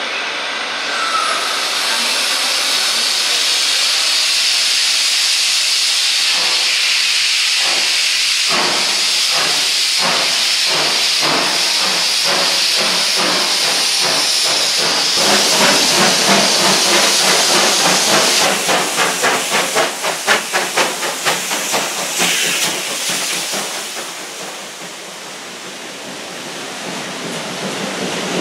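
Two-cylinder steam locomotive of class 52, number 52 100, starting its train: a steady steam hiss, with exhaust chuffs beginning about six seconds in and coming faster as it gets under way. The chuffs are loudest as the engine passes, then give way to the rumble of the coaches rolling by near the end.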